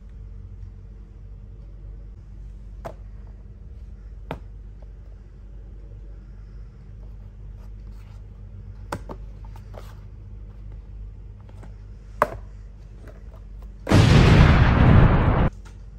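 Scattered taps and clicks of small cardboard toy boxes being handled, over a steady low hum. Near the end comes a loud explosion sound effect lasting about a second and a half, which cuts off abruptly.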